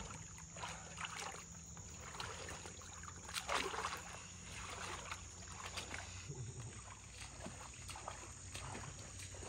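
Swamp water sloshing and splashing as a person wades through it dragging two hog carcasses, in uneven surges with the loudest splash about three and a half seconds in.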